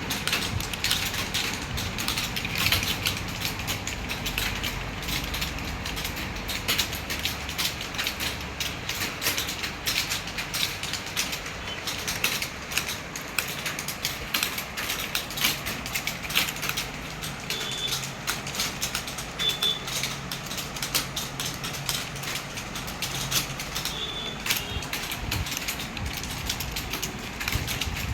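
Fast, continuous typing on a keyboard: a dense, unbroken stream of key clicks.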